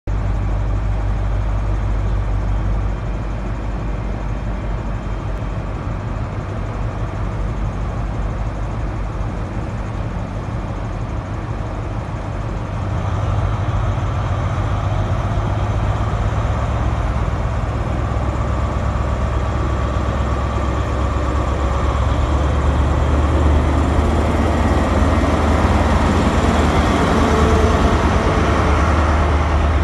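Class 43 HST power car's MTU diesel engine running at the head of a train, growing louder about halfway through and again near the end as the train pulls away and the power car moves past.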